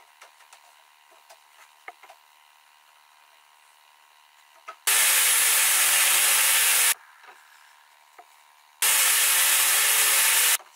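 Table saw running and cutting a wooden board fed on a sled, in two loud stretches of about two seconds each that start and stop abruptly, after a few seconds of light knocks from handling the wood.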